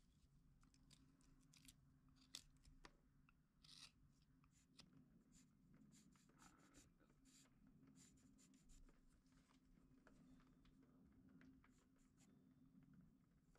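Very faint scratching of a pencil drawing guide lines on the end of a carved wood block, with scattered small ticks from the tools and the block being handled, over a low steady hum.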